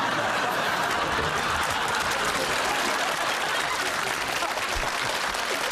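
Studio audience applauding, dense steady clapping that swells up about half a second in.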